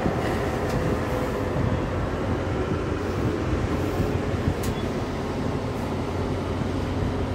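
Steady rumble and hum inside a moving gondola cable car cabin as it travels along the cable, with one short click a little past halfway.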